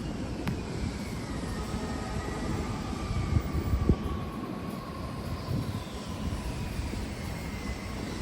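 City street rumble with an airplane passing overhead, its whine slowly falling in pitch. A click comes about half a second in and a thump just before four seconds.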